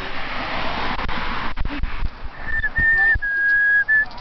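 A person whistling a few high, held notes, beginning about two seconds in, after a stretch of rushing noise.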